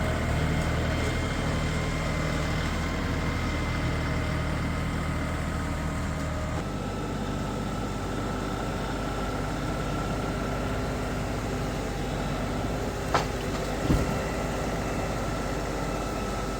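Farm tractor engine running steadily; about a third of the way in its note changes and the deepest hum drops away. A sharp click and then a low thump sound near the end.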